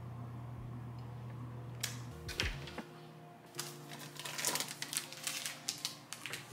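Light clicking and rustling from a kitchen cabinet being opened and a snack box handled on its shelf, with a couple of knocks about two seconds in, over soft background music.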